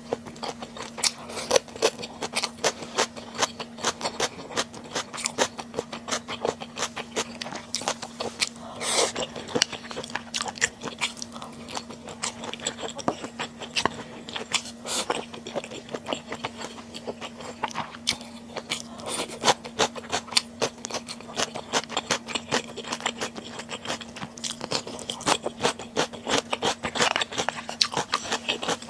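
Close-miked chewing of spicy stir-fried webfoot octopus: a steady run of quick wet clicks and mouth smacks, with a few louder bites along the way. A faint steady hum lies underneath.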